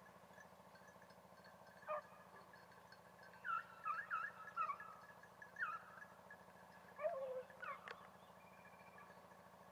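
Beagles giving tongue on a hare's scent: scattered short yelping bays, one about two seconds in, a quick cluster around four seconds and more near seven to eight seconds, over a steady low hum.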